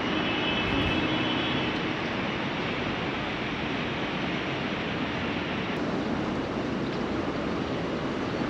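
Steady rushing outdoor noise with no distinct events: wind on the microphone mixed with the hum of the harbour.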